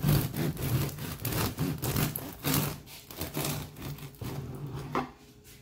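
Long bread knife sawing through a crusty round loaf of bread: rapid back-and-forth rasping strokes, about three a second, tapering off near the end as the blade comes through.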